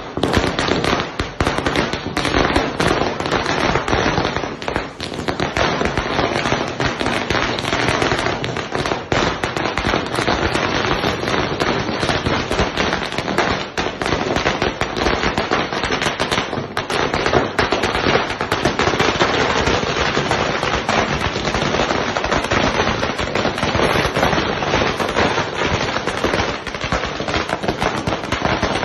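A 10,000-wala firecracker string going off in a rapid, unbroken chain of sharp bangs.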